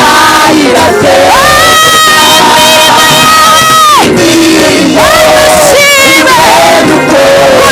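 Music with singing: a voice holds long notes with a wavering pitch, the longest running from about one second to four seconds in.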